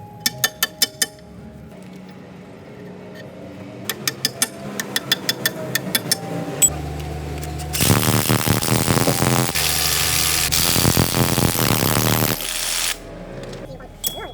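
Workshop tool sounds: two quick runs of sharp metallic clicks, then a power tool running loudly for about five seconds before cutting off.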